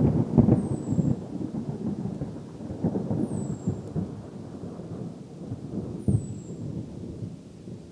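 Thunder rumbling and rolling, with crackles, slowly fading away. A short high falling whistle sounds three times over it, a few seconds apart.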